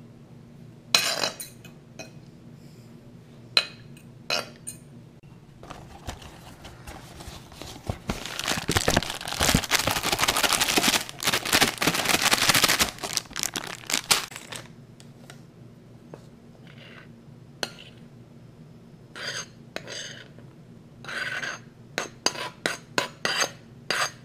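A few sharp clinks of a fork against a ceramic bowl. Then about eight seconds of loud rustling and crinkling as a bag of fish-fry breading mix is handled. Near the end comes a quick run of metal clinks and taps of a knife against a steel saucepan.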